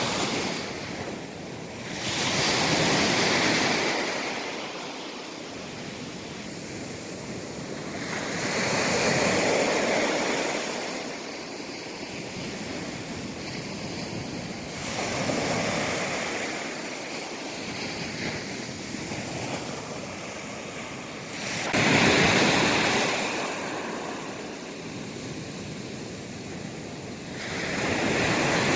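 East Sea waves breaking on the shore, each surge swelling and falling away about every six seconds. The one about three-quarters of the way in comes in suddenly and is the loudest.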